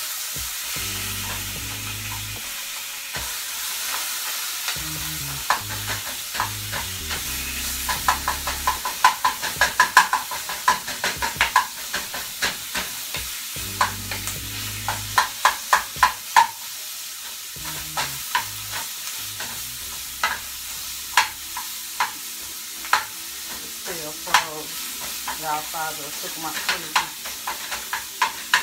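Sausage sizzling in a skillet while a wooden spatula breaks it into crumbles, with steady frying hiss and quick runs of sharp taps and scrapes against the pan.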